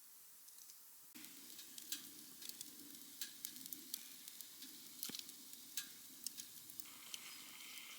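Food sizzling in a hot pan, starting suddenly about a second in, with scattered sharp pops and spatters.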